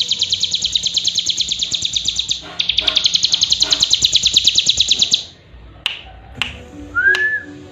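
Cigun, a prinia kept as a songbird, singing a rapid, even trill of sharp high chips, about ten a second, in two long runs with a short break about a third of the way in. The trill stops about two-thirds through, followed by a couple of clicks and a short rising-then-falling whistle near the end.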